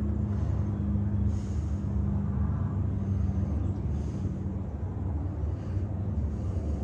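Steady low engine rumble with a constant hum, typical of a motor vehicle running nearby; the hum fades out after about four seconds.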